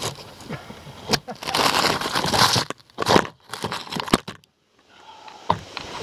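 Dry brush, leaves and dirt crunching and rustling against the camera, with sharp knocks of rough handling, as someone slips and falls on a steep dirt bank. Loudest in a long crunching rush about two seconds in; the sound briefly cuts out past the middle.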